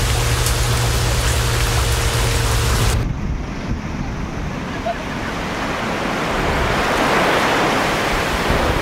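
A steady low hum for about three seconds, then an abrupt change to sea surf washing on the shore with wind on the microphone, the surf swelling toward the end.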